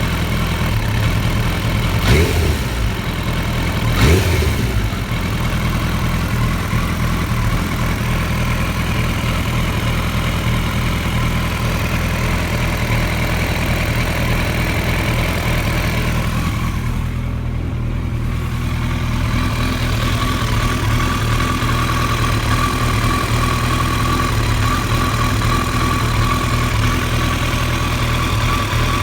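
Engine idling roughly, with two short sharp bursts about two and four seconds in.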